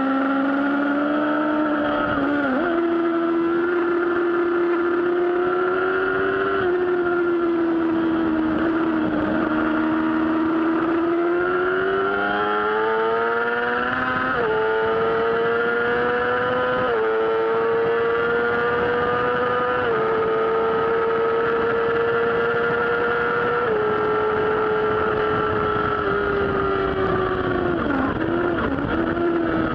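Yamaha R6 sport bike's inline-four engine running hard on track, heard from a camera mounted on the bike. The note climbs as the bike accelerates about a third of the way in, holds high with a few small steps in pitch, then dips briefly near the end.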